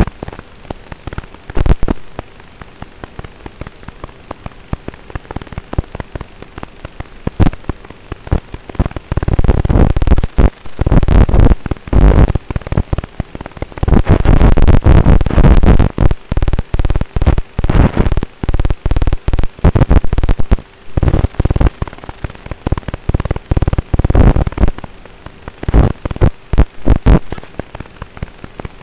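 Crackling, popping static on the audio of an analog FPV video feed, with dense bursts of noise about halfway through, where the picture also breaks up.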